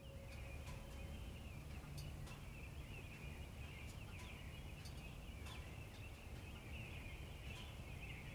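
Faint, distant wild turkey gobbling, rising and falling in a rattling band, over a steady low rumble of background noise.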